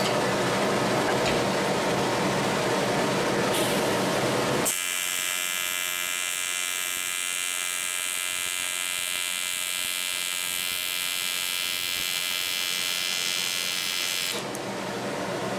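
A steady rushing noise, then about five seconds in an AC TIG welding arc on 7075 aluminum strikes suddenly and buzzes steadily for about ten seconds, stopping shortly before the end.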